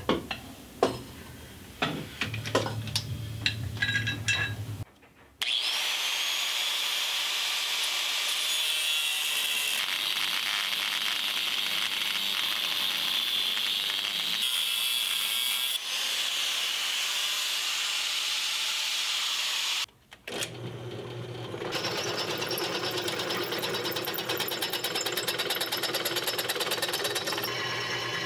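A few seconds of scattered metal clanks and knocks from working on parts. Then a Makita angle grinder runs steadily for about fifteen seconds, grinding a cast-metal bracket clamped in a vise, and stops abruptly. After a short pause a drill press motor starts and runs steadily while drilling the same part.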